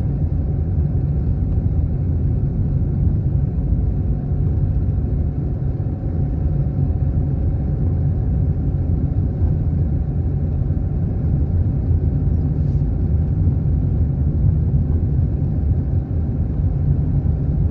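Steady low rumble of a moving car heard from inside its cabin: engine and tyre noise while driving at town speed.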